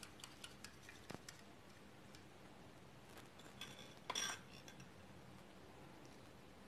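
Faint light ticks of a small wire whisk against a glass bowl of milk in the first second or so, then a single short clink as a plate is picked up, about four seconds in. Otherwise near silence.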